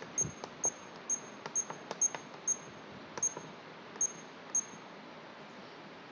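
Keypad of an automatic school bell control panel beeping as its buttons are pressed: about nine short high beeps, each with a faint button click, at an uneven pace of roughly two a second, stopping about four and a half seconds in.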